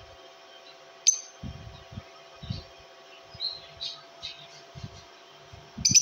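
Lovebirds in a wire cage giving short, sharp high-pitched chirps: a loud one about a second in and another near the end, with softer chirps in between. Soft low bumps run under them.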